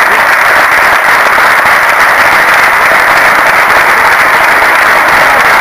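Crowd applauding: dense, steady clapping that keeps up at an even, loud level throughout.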